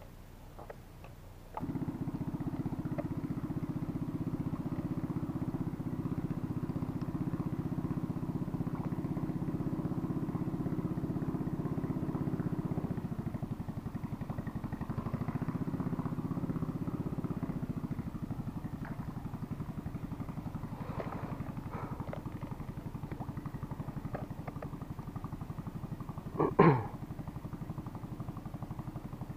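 An engine running steadily, starting about two seconds in and easing off slightly later on. Near the end there is one brief, sharp sound that falls quickly in pitch.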